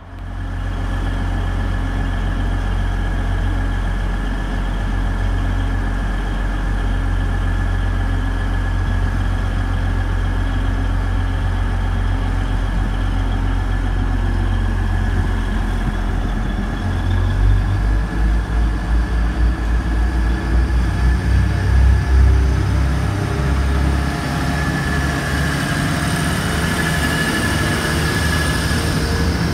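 Heavy diesel engine of a train running close by: a steady low hum with a high whine above it, turning uneven and pulsing and a little louder from about halfway through.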